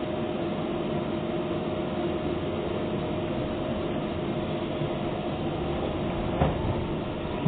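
Docklands Light Railway train running at steady speed, heard from inside the carriage: a constant rumble with a steady motor hum, and a single knock about six and a half seconds in.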